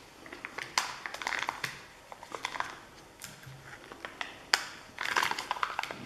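Plastic surprise-egg toy capsule being twisted and pried at, with sharp plastic clicks, mixed with foil wrapper crinkling. The capsule is stiff and hard to open.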